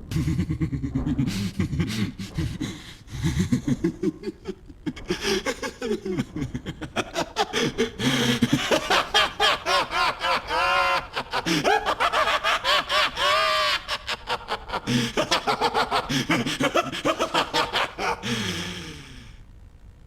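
Light Yagami's long maniacal laugh, voiced by a male actor in the Italian dub of Death Note. It starts as low chuckling, climbs into fast, high-pitched cackling that peaks in the middle, then trails off near the end.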